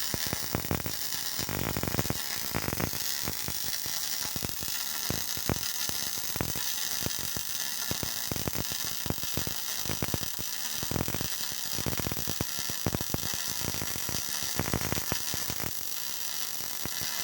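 Electric arc welding: a steady crackling arc, dense with irregular pops over a constant hiss, stopping abruptly at the end as the arc is broken.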